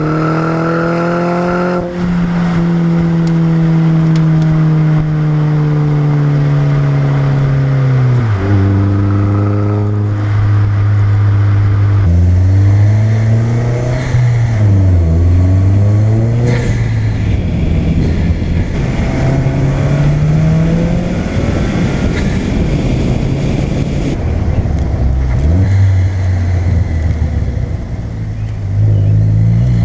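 Chevy Sonic RS 1.4-litre turbocharged four-cylinder running through a ZZP turboback exhaust, its note climbing and falling repeatedly as it is revved and let off. There are several sudden drops in pitch, the first about eight seconds in.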